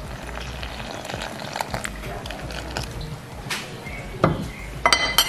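Water poured from a jug into a bowl of flour for batter: a soft, steady splashing. Near the end come a few sharp clinks.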